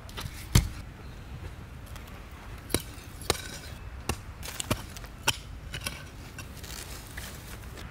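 A hand tool chopping into hard, dry soil: about seven sharp, irregular strikes, the first the loudest.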